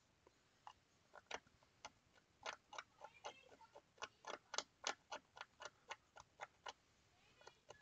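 Faint, irregular scratching clicks of a small hand scraper working across a circuit board, about three strokes a second. The board surface is being scraped clean down to copper so a component can be soldered onto it.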